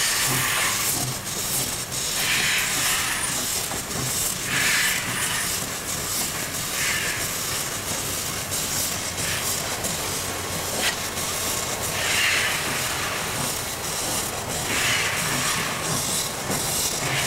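Alco Tipo 70 steam locomotive hissing steam steadily, with a slow, regular puff of exhaust steam about every two and a half seconds as it works slowly along the track. A single sharp click about eleven seconds in.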